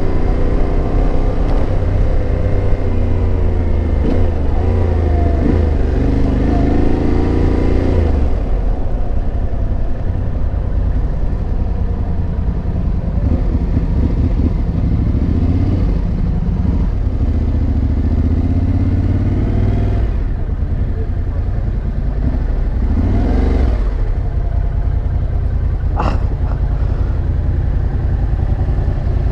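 Motorcycle engine running under way, its pitch rising and falling several times as it revs up and eases off, over a heavy low rumble of wind on the microphone. One sharp click near the end.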